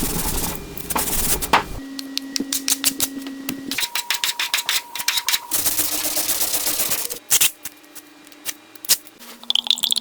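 Rapid, irregular sharp clicking and tapping, several clicks a second, thinning out to a few scattered clicks after about seven seconds.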